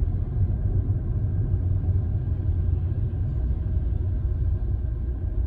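Steady low rumble of a Hyundai i20 driving on a city road, heard from inside the cabin: engine and tyre noise.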